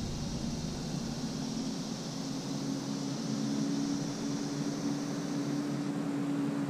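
Bow-mount electric trolling motor on a jon boat running with a steady hum, with a high even hiss that stops about six seconds in.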